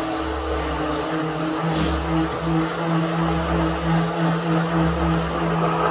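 Philco PMX600 600 W stick blender running steadily in its tall cup, blending a thick banana-and-milk smoothie. A steady motor hum with a low throb that swells and fades about every second and a half.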